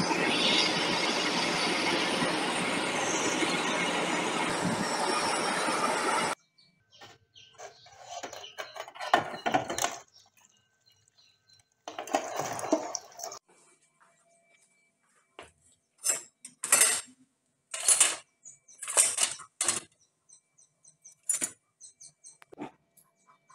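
Power grinder working on steel, a steady grinding noise that cuts off abruptly about six seconds in, followed by a series of short, separate grinding or scraping strokes with pauses between them.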